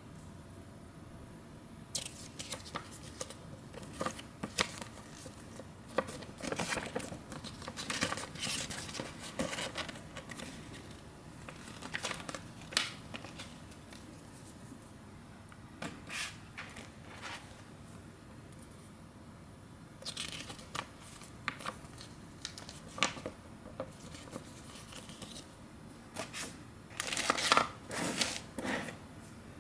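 Packaging being handled and opened, with crinkling, rustling and tearing in irregular bursts and small clicks, loudest near the end.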